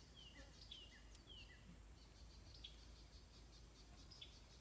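Faint outdoor ambience: a bird gives a quick series of short, high, falling chirps over the first second and a half, then faint insect ticking carries on.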